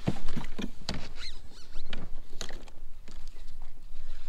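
Spinning reel being cranked during a retrieve: a gear whir broken up by irregular clicks and knocks, with a low rumble under it.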